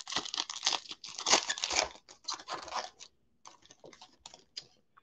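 Foil wrapper of a Panini Absolute Football trading-card pack being torn open by hand: a quick run of tearing and crinkling, loudest in the first two seconds, then sparser, fainter crinkles as the foil is peeled back.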